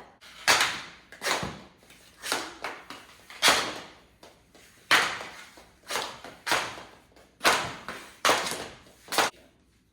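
Knee-hockey play with mini sticks and a ball: a string of irregular sharp knocks and thuds, one or two a second, as sticks strike the ball and it bangs off the walls and door.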